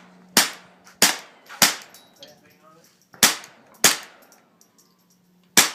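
Mossberg 715T .22 LR semi-automatic rifle firing six sharp shots: three about half a second apart, a pause of over a second, two more, then a last one near the end.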